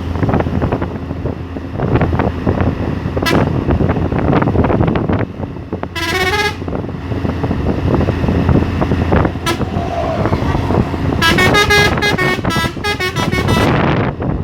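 Hino truck's three-trumpet telolet horn playing short melodic toots: a brief rising phrase about six seconds in and a fast, stuttering run of notes near the end, over steady truck engine and road noise.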